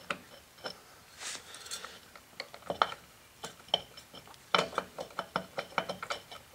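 Steel hub parts clicking and clinking against each other as they are worked onto a Dana 44 front wheel hub by hand, with the clicks coming thicker in the second half.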